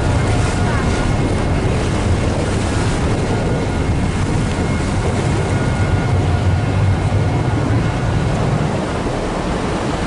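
Steady wind buffeting the microphone over the low engine rumble and water wash of a harbour ferry underway.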